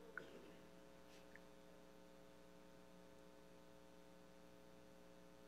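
Near silence: a faint steady electrical hum, with one small click about a fifth of a second in.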